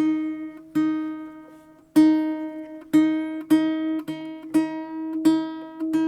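Acoustic guitar strumming the same chord over and over in an uneven rhythm, each strum ringing out before the next.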